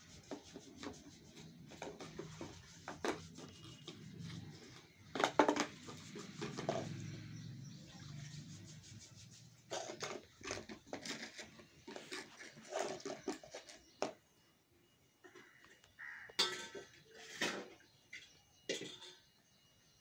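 Kittens playing on a concrete floor, knocking a plastic bowl about: scattered clatters, knocks and scuffs, loudest about five seconds in.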